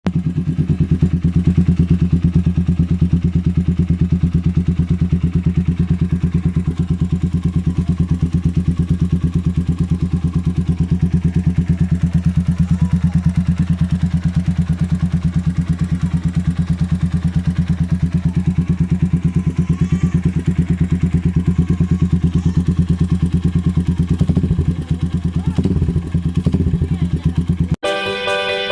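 Motorcycle with an SC-Project aftermarket exhaust idling steadily, a fast even pulse from the exhaust, with a slight change in the engine note near the end.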